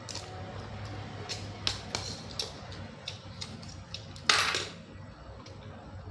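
Cockle shells clicking and knocking as they are pried open by hand, in a string of sharp clicks with one louder, longer scraping burst about four seconds in.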